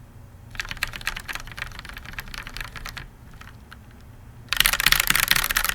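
Lubed linear mechanical keyboard switches (MX Black, Gateron Yellow and Tealios types) on an undampened hotswap board, struck in fast rolling runs across several keys like strummed chords. A dense run of clicks lasts about two and a half seconds, a few single keystrokes follow, then a louder, even faster run starts near the end.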